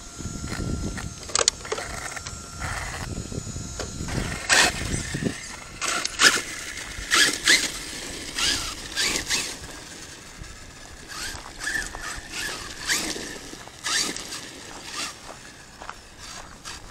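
Arrma Kraton 6S electric RC monster truck driving over dirt and gravel: a low rumble for the first few seconds, then a run of sharp crunching hits about twice a second with short bursts of rising and falling motor whine.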